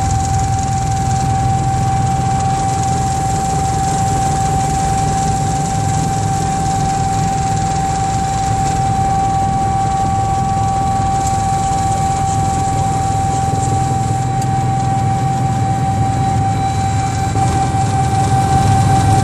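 Cockpit noise of a Sikorsky S-76 twin-turbine helicopter in flight: a steady low drone of rotor and engines with a strong, steady high-pitched whine over it, growing a little louder near the end.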